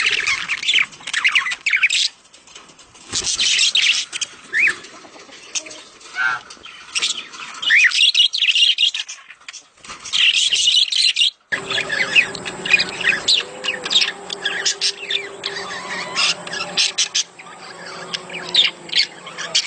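Budgerigars chattering and warbling together in rapid high chirps: budgie mating-season calls. The sound breaks off abruptly about halfway through, and after that a low steady hum runs under the chirping.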